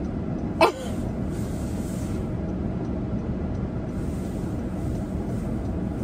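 Steady low rumble of a car's cabin with the engine running, with one short voice sound a little over half a second in.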